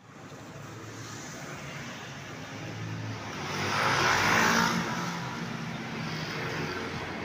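Street traffic: a steady engine hum, with a vehicle passing close by that swells up and fades, loudest about four seconds in.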